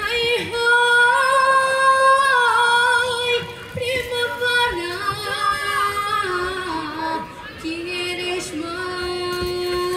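A young female singer singing solo into a microphone, amplified through stage loudspeakers, holding long notes with a slight vibrato and short breaks between phrases.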